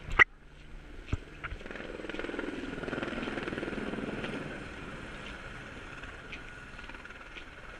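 Helicopter flying past, its rotor chop swelling to a peak a few seconds in and then fading as it moves away. A sharp knock sounds right at the start.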